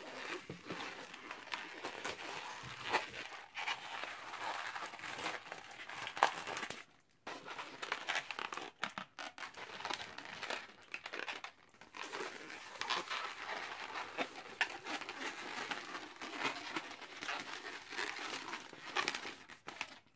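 Long latex modelling balloon being twisted into a balloon animal, the rubber rubbing and crinkling under the hands in a string of short scrapes and clicks, with a brief pause about seven seconds in.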